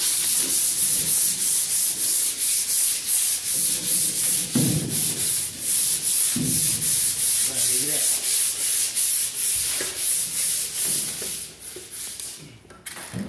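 Hand sanding with folded sandpaper on the painted steel bed floor of a Ford F100 pickup, in rapid, even back-and-forth strokes, about three or four a second. It scuffs the old paint as prep for a spray-in bed liner. The strokes stop near the end.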